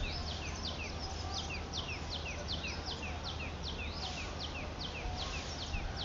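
Newly hatched chicks peeping in a bamboo basket: a steady run of short, high, falling peeps, several a second, from more than one chick.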